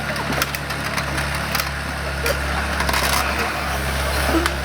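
The diesel engine of an O&K RH6 tracked excavator runs steadily under load. Scattered sharp cracks and crunches sound over it as the car's body is crushed beneath the machine.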